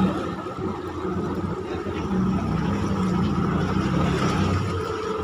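A motor vehicle engine running steadily, its hum swelling and easing slightly.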